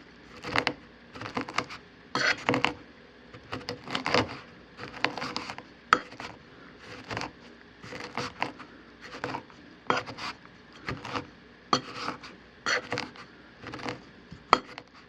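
Stainless steel pestle pounding and grinding peanuts in a 304 stainless steel mortar: sharp metallic clinks and gritty scrapes, about one to two strokes a second in an uneven rhythm, which stop near the end.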